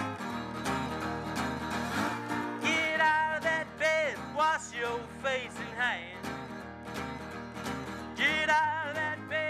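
Steel-string acoustic guitar playing a blues intro. From about three seconds in, a man's wordless vocal with sliding, bending notes is sung over it.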